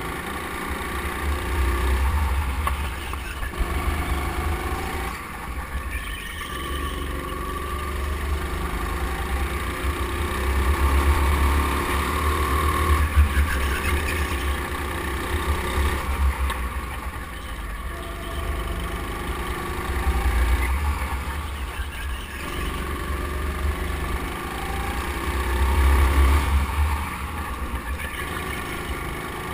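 A go-kart's motor running as the kart laps a track, with a heavy low rumble underneath. Its level swells and eases every few seconds with the throttle through the corners.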